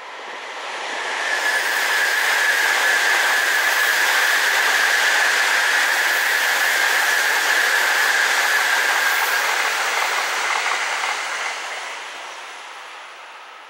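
Tokaido Shinkansen bullet train passing at speed. A dense rushing noise swells up over the first couple of seconds and holds for about nine seconds with a steady high whine in it. It then dies away near the end.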